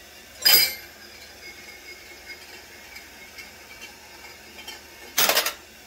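Brass .223 cases clinking on metal in an EP 2.0 annealer: one sharp clink about half a second in, and a short rattle of clinks about five seconds in as an annealed case drops from the turning plate into the stainless pan. Under it runs the steady hiss of the gas torch flame.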